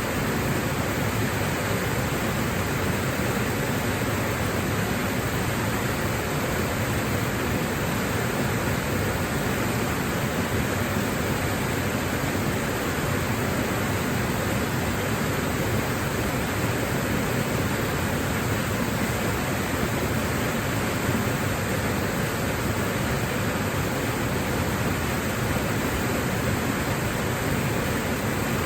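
Waterfall, water rushing and splashing in a steady, unbroken roar of white noise.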